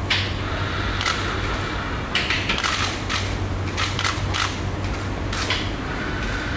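Tip-up seats in a Kawasaki-CRRC Sifang C151C train carriage being handled: a series of short, irregular clacks and clicks from the folding seat mechanisms, over the carriage's steady low hum.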